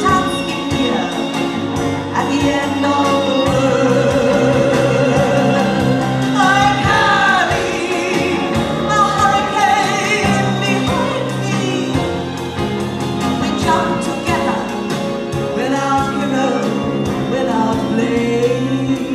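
A woman singing cabaret-style with a wide vibrato, backed by a live band.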